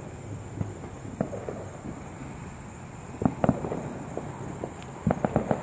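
Distant firecrackers popping: scattered sharp pops, a short cluster a little past the middle, and a rapid string of pops near the end.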